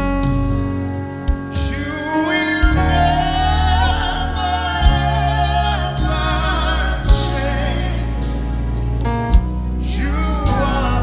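Gospel worship music with singing over a sustained keyboard and a few sharp drum hits.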